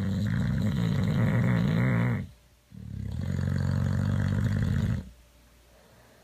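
Boxer dog snoring: two long snores with a short pause between them, the second ending about five seconds in.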